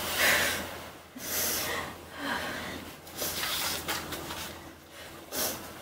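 A person breathing audibly, with short breathy gasps or sniffs about once a second.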